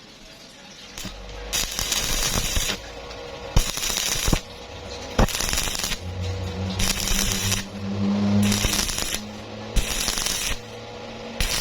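Electric arc welding in a series of short bursts, each about a second long, as in tack welding. Each burst is a crackling sizzle with a low hum from the welder underneath some of them.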